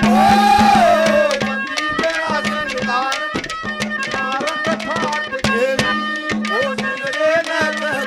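Haryanvi ragni folk music played live: drums struck in a quick rhythm over a steady drone and sustained melody tones. A single sung line rises and falls in the first second.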